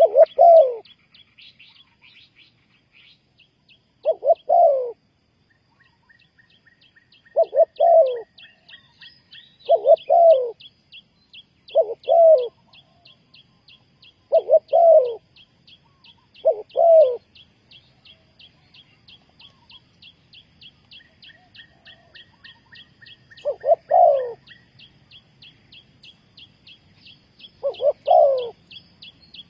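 Spotted dove cooing: short, loud, rolling coos repeated every two to four seconds, with a longer pause after about 17 seconds. A faint, fast, high chirping runs on steadily behind them.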